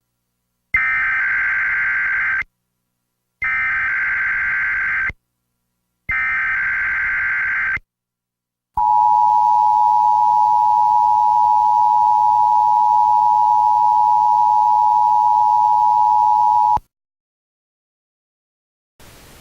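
Emergency Alert System tones: three bursts of the warbling digital SAME header, each about two seconds long, then the steady two-tone attention signal held for about eight seconds. Together they open a broadcast alert, here a tornado warning.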